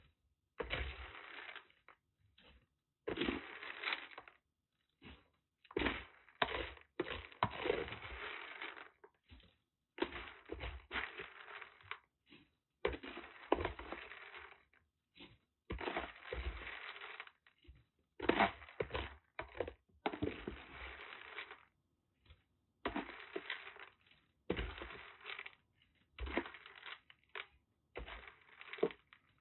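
Irregular bursts of scraping and rustling with short silent gaps between: a kitten scampering and scrabbling about the floor of its wire cage.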